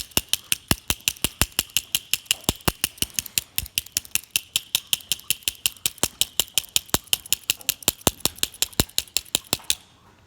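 Deadbolt lock cylinder being tapped rapidly on the ground, about five sharp metallic knocks a second, stopping near the end. The tapping vibrates a broken key out of the cylinder's keyway.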